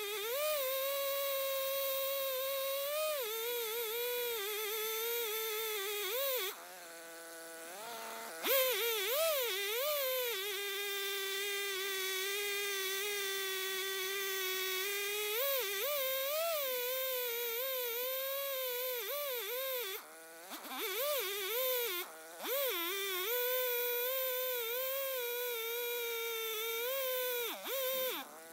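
Stihl two-stroke chainsaw running at high revs while milling a log lengthwise on an Alaskan mill, its pitch wavering under the load of the cut. The engine speed drops briefly about seven seconds in and again around twenty seconds in before picking back up.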